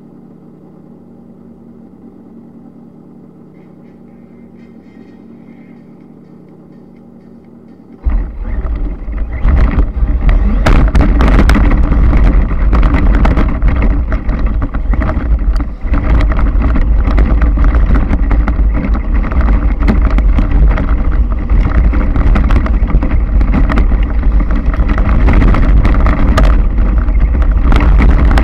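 Radio-controlled car heard through its onboard FPV camera. At first there is a quiet steady hum. About eight seconds in it sets off, and the sound turns to a loud, heavy rumble full of rattles and knocks as the car drives over rough ground, with wind on the microphone.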